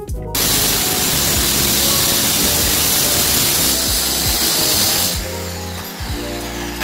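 A power tool starts just after the start and runs steadily and loudly, its higher sound dropping away about five seconds in; background music plays underneath.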